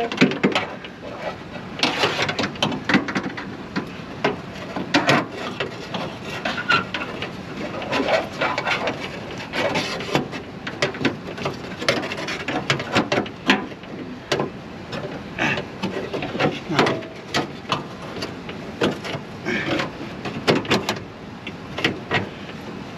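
Irregular clicks, clanks and rubbing of hand tools and metal parts being worked inside a car door while a window regulator is being fitted. The knocks come at uneven intervals, several a second at times, with short pauses between.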